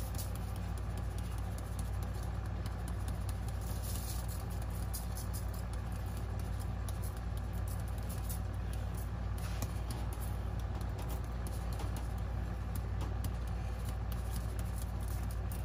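Steady low hum of a running kitchen appliance, with faint light ticks and patter as Cajun seasoning is shaken from a shaker canister onto fish fillets in a foil-lined pan.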